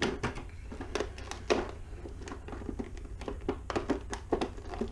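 A boxed fishing lure being unpacked and handled: irregular clicks and taps with light crinkling of packaging, one sharper knock about a second and a half in.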